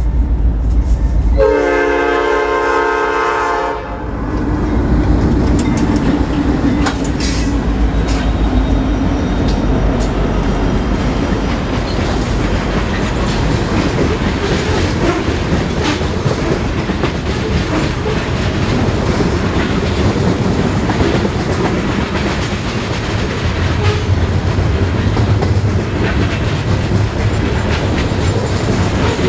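Norfolk Southern freight train passing close by. About a second and a half in, the horn sounds a chord of several notes for about two seconds, over the rumble of the approaching locomotives. Then a long string of hopper cars rolls past steadily, the wheels clacking over the rail joints.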